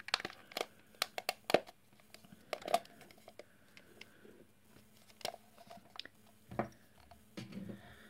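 Plastic case halves of a Commodore Amiga mouse being pushed together and handled: a run of sharp plastic clicks and knocks in the first three seconds, then a few sparser ones.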